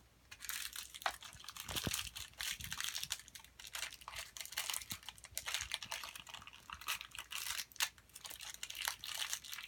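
Thin plastic packaging crinkling and crackling as it is handled and pulled open, in an irregular run of small crackles.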